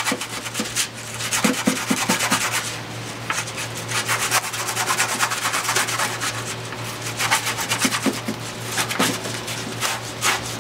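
Coarse sandpaper being rubbed by hand over the edges and teeth of a small gear, in quick, repeated back-and-forth rasping strokes to smooth off leftover fibres from cutting. A steady low hum runs underneath.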